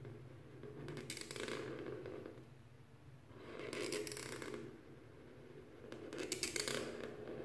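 Black felt-tip marker tip rubbing across paper as circles are drawn, in three strokes about a second long each, roughly two and a half seconds apart.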